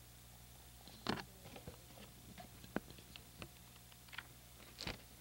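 Scattered soft clicks and short rustles of paper and small boxes being handled: gift wrap and picture-book pages. The loudest rustle comes about a second in, another near the end, over a faint steady low hum.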